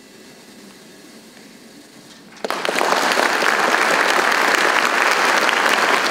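A hush of about two and a half seconds, then an audience starts applauding suddenly and keeps clapping steadily, marking the end of the band's performance.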